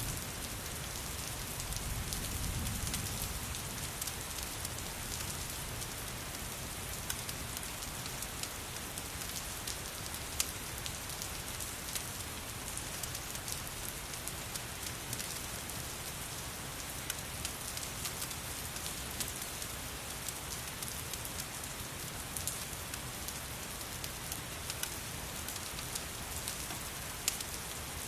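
Steady rain hissing, mixed with a crackling fireplace that gives many scattered sharp pops. A brief low rumble comes about two seconds in.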